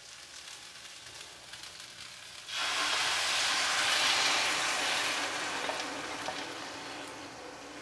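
Rice sizzling faintly in oil in a hot pan, then coconut milk poured over it from a bowl about two and a half seconds in, setting off a loud hissing sizzle that slowly dies down as the liquid cools the pan.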